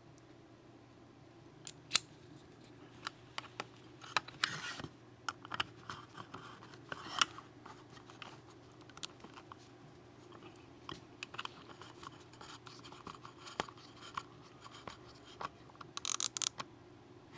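Irregular clicks, taps and scrapes of hand tools being handled on a workbench, with two short scratchy rustles.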